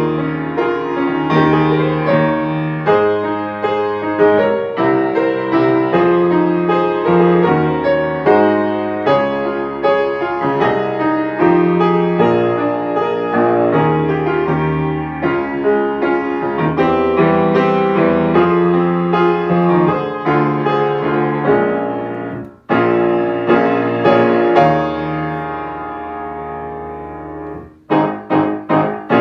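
Piano playing a choral-song accompaniment: running chords under a melody, broken off briefly about three-quarters in, then a long held chord that fades before a few short, sharply struck chords near the end.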